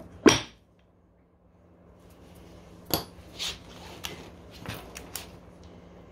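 Tools and metal parts being handled during a scooter hub-motor bearing job: one sharp knock just after the start, then, after a short pause, a run of about five lighter knocks and clicks roughly half a second apart, over a low steady hum.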